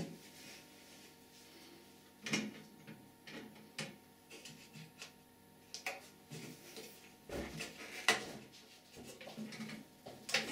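Plastic fittings of a Geberit concealed toilet cistern clicking and knocking as they are handled through the wall access opening: short, scattered taps a second or two apart.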